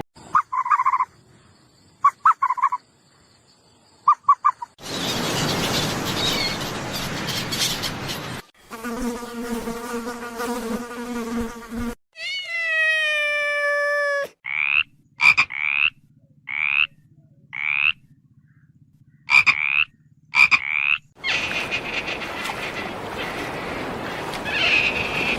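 A string of different animal calls, one after another: a few short chirps, a hissing chorus, a steady even-pitched buzz, a single falling squeal, then a series of short rising chirps over a low hum, and a hissing chorus again near the end.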